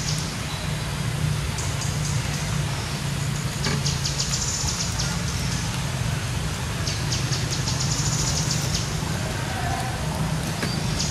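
Outdoor forest ambience: a steady low hum, with a high, rapid trill that repeats for about a second every few seconds.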